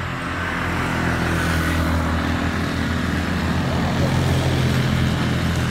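A motor vehicle's engine running steadily, growing louder over the first second or so and then holding.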